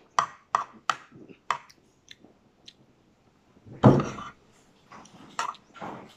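Eating sounds: mouth clicks and chewing of rice, with a metal spoon scooping and clinking on a plate. A quick run of sharp clicks comes in the first second and a half, and a louder, longer noise about four seconds in.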